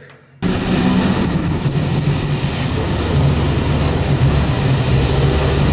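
A loud, steady vehicle-running sound effect that starts abruptly about half a second in and cuts off suddenly near the end.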